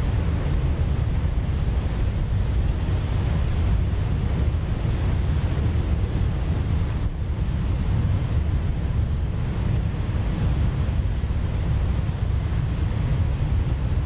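Stock sound-effect recording of storm surf: a steady, deep wash of breaking waves with wind, no single crash standing out, and a brief dip about halfway through.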